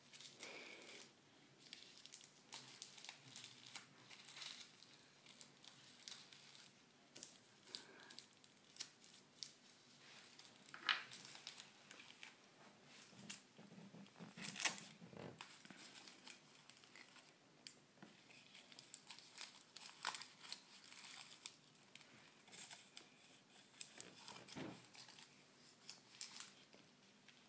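Faint rustling and crinkling of torn paper pieces being handled by a baby's hands on a tabletop: scattered short crackles, a few of them louder.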